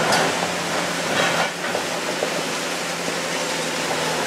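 Caterpillar 345C L long-reach excavator's six-cylinder diesel running steadily under a continuous hiss. Concrete crunches in the demolition jaws near the start and again about a second and a half in.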